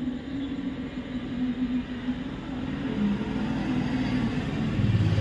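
An engine running steadily with a held hum. Near the end a deeper, louder engine note comes in.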